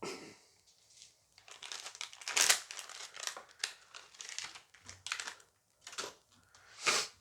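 Crinkling and tearing of a foil booster pack being ripped open and handled, in irregular rustling bursts, loudest about two and a half seconds in and again near the end.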